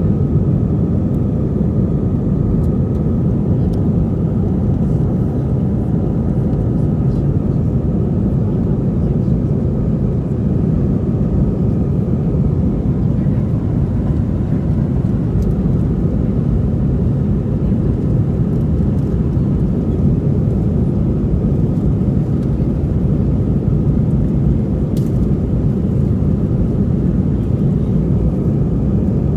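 Steady airliner cabin noise in flight: an even, low rumble of engines and rushing air with a faint steady hum.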